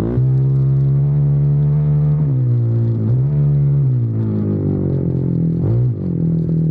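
Off-road vehicle engine running hard. Its pitch dips sharply and climbs back several times as the throttle comes off and on.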